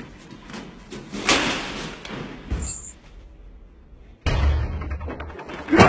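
Film sound effects: light footsteps on a metal staircase, then a loud slam about a second in and a smaller knock shortly after. Just past the middle a loud low rumble cuts in suddenly.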